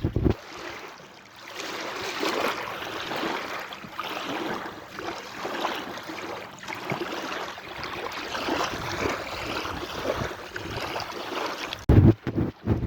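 Sea waves washing and breaking, swelling and ebbing in a steady hiss. Near the end, wind buffets the microphone in loud low gusts.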